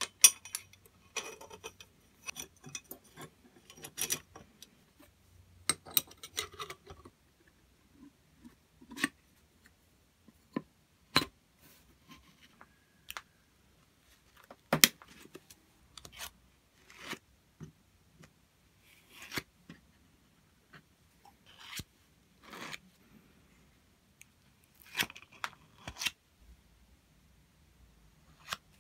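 Irregular clicks, clinks and short scrapes of small steel grease-gun parts (washer, barrel, nut and plunger rod) being handled and fitted together by hand, with quiet gaps between them.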